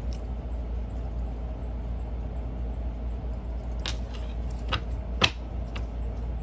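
Steady low hum with four short, sharp clicks in the second half, the loudest just after five seconds in.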